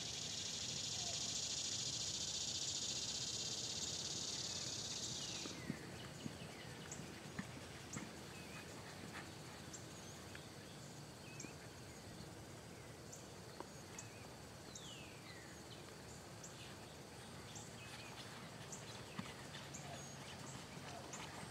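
A cicada's loud, steady buzz that winds down and stops about five and a half seconds in, then birds chirping over a horse's soft hoofbeats on arena sand.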